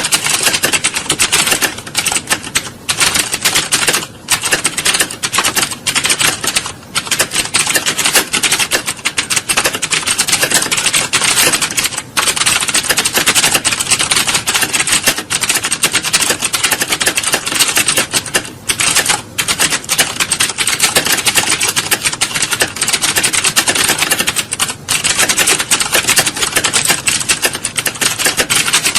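Fast typing on computer keyboards: a dense, nearly continuous clatter of key clicks with a few brief pauses, the sound of an exam-hall typing test.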